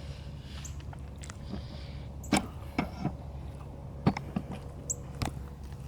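A handful of sharp, separate clicks and knocks, loudest about two seconds in and again about four seconds in, over a steady low rumble.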